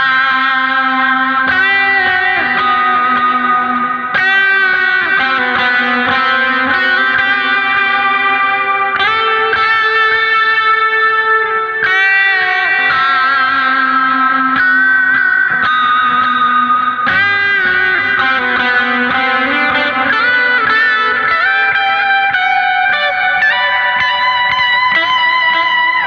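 Electric guitar played through effects, ringing out sustained chords that change every second or two in a steady, unbroken passage.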